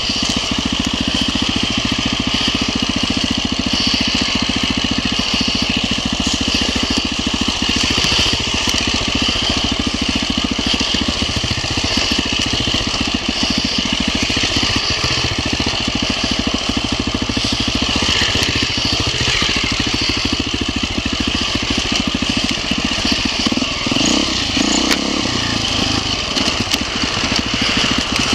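Enduro dirt bike engine running hard as the bike is ridden over a rough forest trail, heard close up from a camera mounted on the bike. The throttle eases off and picks up again a few times.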